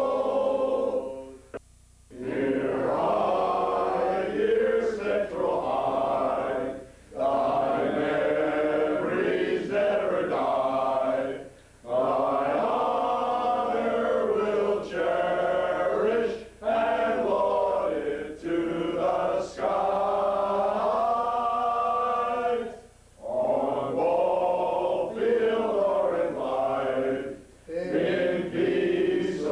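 A group of men's voices singing an alma mater song together, in long sung phrases with short breaks between them.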